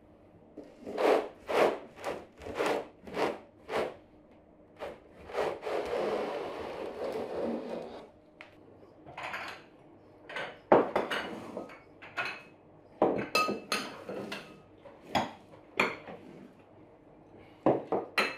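Glass tea glasses and saucers being set down and handled on a cloth-covered table: a quick series of knocks, then a stretch of irregular clicks and clinks, some with a short glassy ring. In the middle comes a steady rushing noise lasting about two seconds.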